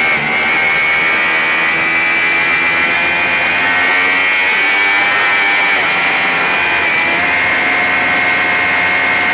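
Sport motorcycle engine held at high revs under hard acceleration on track, with wind rushing past; it shifts up once from third to fourth gear partway through.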